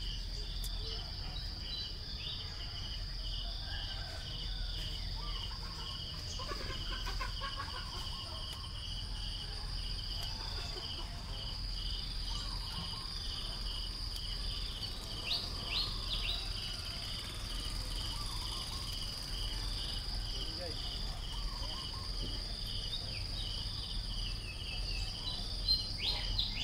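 Insects calling from the trees: a steady high whine over a repeating, pulsing chirp. A few short high squeaks come about halfway through and near the end.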